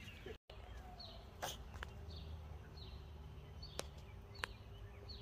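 Faint outdoor ambience with a bird giving short, repeated high chirps about once a second, and a few light clicks.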